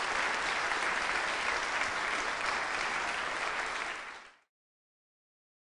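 Audience applauding steadily, fading out about four seconds in.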